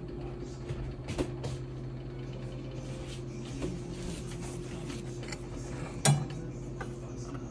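Scattered light kitchen knocks and clicks from cookware and cupboards being handled, the loudest a single sharp knock about six seconds in, over a steady low hum.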